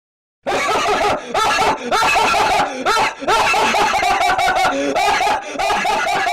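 Laughing meme sound effect: a high-pitched snickering laugh that starts about half a second in, runs for about six seconds in broken bursts, and cuts off abruptly.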